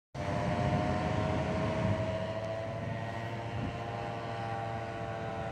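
Paramotor's backpack engine and propeller droning steadily in flight overhead, its pitch easing slightly lower.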